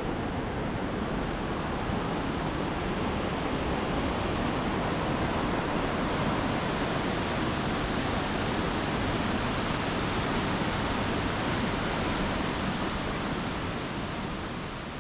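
Steady rush of a waterfall, an even noise of falling water that fades out near the end.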